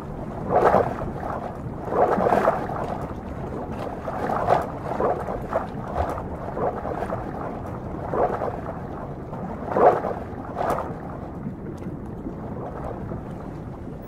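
Muffled underwater rushing and bubbling of water churned by diving, paddling pelicans, swelling in irregular surges every second or so.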